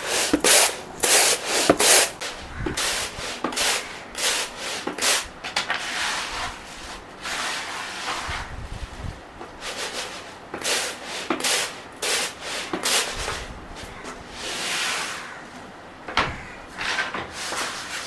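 Uncooked rice grains swishing and rattling in a plastic tray as it is shaken and tossed to winnow out dust and husk. Repeated strokes, quick and loud for the first few seconds, then softer and more uneven.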